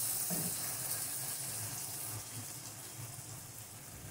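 Tomato-onion masala sizzling in a pan, the sizzle slowly dying away once the gas flame has been turned off.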